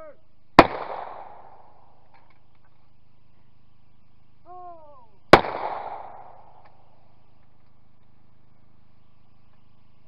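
Two shotgun shots at clay targets, about five seconds apart, each with a short ringing tail. Each shot comes half a second after a shooter's short shouted call for the clay.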